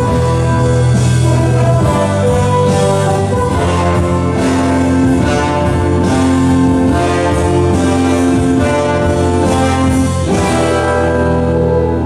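Orchestral music with brass, in long held chords that change every second or two.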